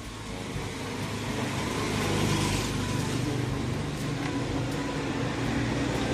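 A motor vehicle's engine running steadily, growing louder over the first two seconds and then holding.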